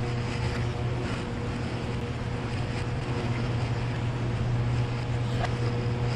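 A steady mechanical hum, even in level throughout, with a constant low drone and a fainter higher tone above it.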